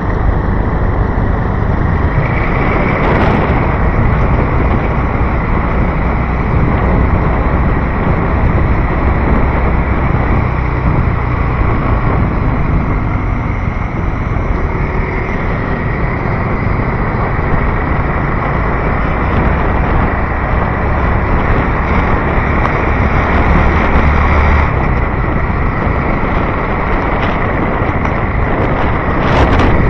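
Steady, loud traffic and vehicle noise with wind buffeting the microphone.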